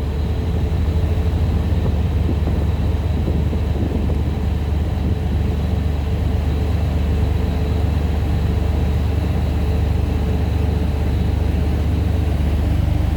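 A shuttle boat's engine running steadily underway: a loud, even low drone with no change in pitch.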